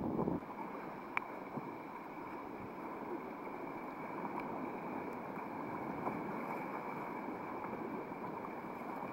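Rough sea water rushing and churning around a sea kayak's hull in broken tidal water, with wind on the microphone. There is a louder surge at the start and a sharp click about a second in.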